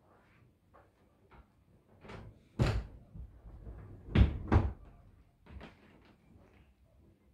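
Pull-out bed section of a sofa sectional being pulled out from under the seat and pushed back in, knocking against the frame. A loud thump about two and a half seconds in, then two more in quick succession just after four seconds.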